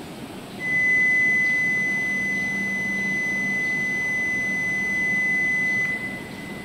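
A steady, high electronic beep tone at one unchanging pitch, starting under a second in and cutting off sharply about five seconds later, over a low steady hum.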